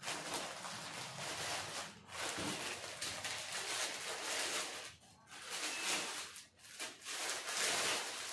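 Clear plastic packaging rustling and crinkling in several stretches with short pauses, as a folded metal backdrop stand is handled and slid out of its plastic sleeve.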